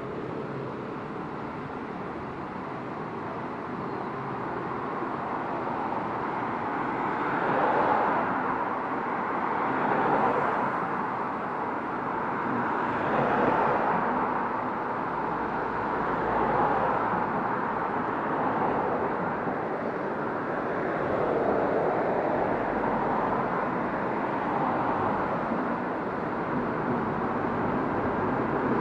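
Road traffic passing by, cars going past one after another, each swelling and fading, with a lorry drawing near and growing louder at the end.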